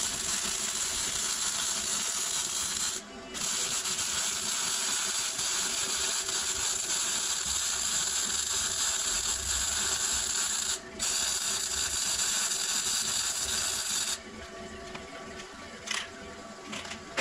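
Electric arc welding on a steel door frame: a steady crackling hiss in three runs, with brief stops about 3 and 11 seconds in, ending about 14 seconds in.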